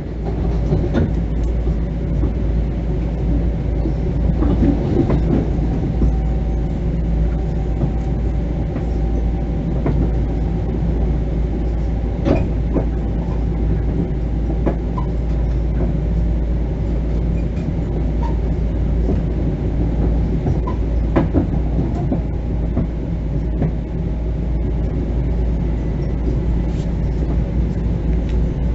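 Interior ride noise of an LIRR Bombardier M7 electric multiple-unit railcar: a steady low rumble with faint steady tones over it and occasional sharp clicks scattered through it.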